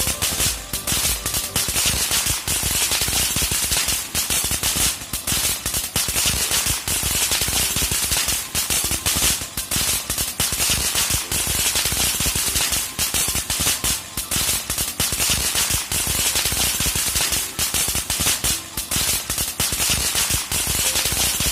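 Tricolour crackling ground fountain firework burning steadily, its hissing spray of sparks broken by dense, rapid crackling pops from the red and green crackling stars.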